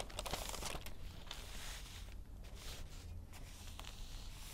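Faint rustling of newspaper pages being handled and turned, over a low steady hum.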